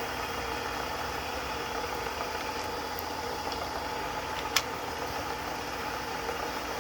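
Milling machine running steadily while an end mill slowly cuts out the remains of a broken stud. A single sharp click about two-thirds of the way through.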